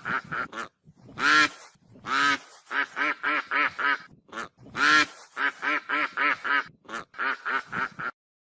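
Goose honking: quick runs of short honks, about four a second, broken by longer, louder single honks about a second in, near two seconds and near five seconds.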